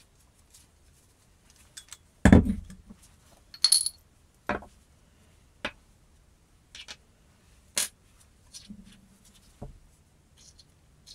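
An old cast-metal hand drill and its small steel parts set down one by one on a hard worktop. A heavy thud about two seconds in is followed by a string of sharp metallic clinks and taps, one ringing briefly, as the chuck shell and its cone-shaped jaws are laid beside it.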